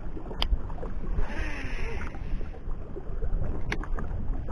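Small fishing boat under way at sea: a steady low rumble of motor, wind and water. A brief hissing rush comes about a second in, and a couple of sharp clicks sound.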